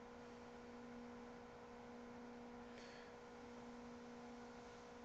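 Near silence: a faint steady hum over light hiss.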